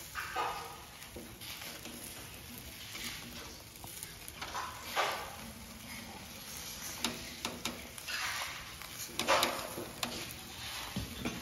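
Chicken and tomato kebabs sizzling on flat metal skewers over charcoal in a metal mangal, with several short rattles and scrapes as the skewers are turned.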